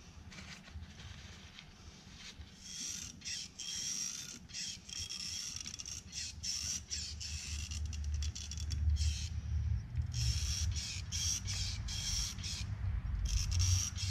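Hand grease gun being pumped, forcing grease through its hose into the opened auger gearbox of a John Deere 6600 combine to pack the bevel gears. It comes as a run of short, irregular, hissy squirts starting about two seconds in, over a low steady hum.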